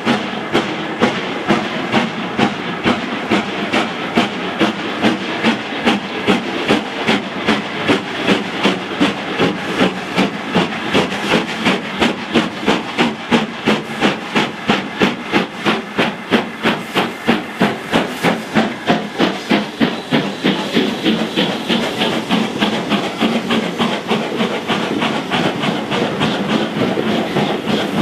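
LMS Black 5 steam locomotive No. 44871, a two-cylinder 4-6-0, working hard with a train: a regular exhaust beat that quickens as it gathers speed. Over the last several seconds the beats fade as the carriages pass, leaving wheels clattering over rail joints.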